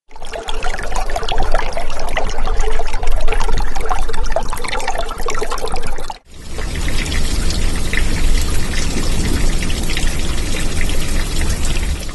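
Water pouring and trickling in two stretches, cut off for a moment just after six seconds; the second stretch is a steadier rush with a low rumble.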